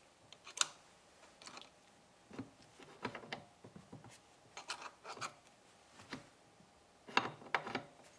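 Scattered light metallic clicks and scrapes as a steel 21-spline PTO adapter is pushed and twisted onto an electric motor's splined shaft. A sharper click comes about half a second in, and a quick run of clicks near the end.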